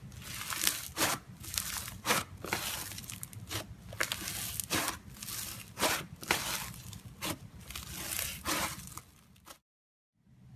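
Slime being squeezed and worked by hand, giving irregular sharp crackling pops and crunches. The sound breaks off into a brief silence near the end.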